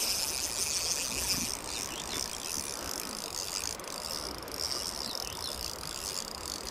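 Spinning reel ticking steadily as a hooked trout is played, over a steady rush of river water.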